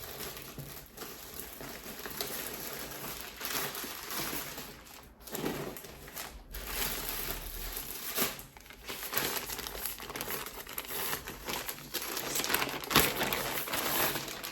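Plastic packaging crinkling and rustling as a parcel is opened and its contents unwrapped by hand, with one sharp crackle near the end.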